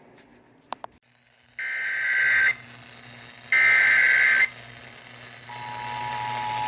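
Emergency Alert System alert coming in on a weather radio's speaker. After a click and a hum, two roughly one-second bursts of the SAME digital header sound, then the steady two-tone EAS attention signal starts about five and a half seconds in.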